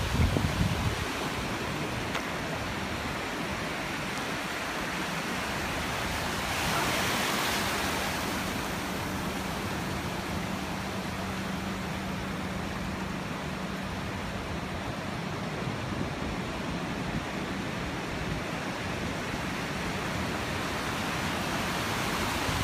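Ocean surf washing steadily on a beach, with one wave swelling louder about seven seconds in. A faint low hum sits underneath for several seconds in the middle.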